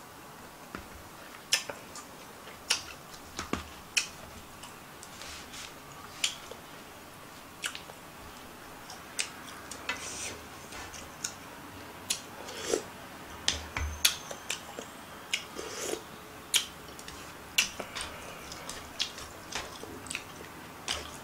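A person eating ramen noodles close to the microphone: chewing and slurping, with many short, sharp smacks and clicks, two or three a second, as wooden chopsticks and a wooden spoon work the noodles in the pan.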